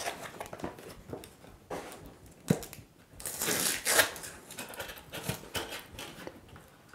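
Cardboard packaging being handled: scattered light clicks and a sharp knock about two and a half seconds in, then about a second of rustling with a loud knock in the middle of it.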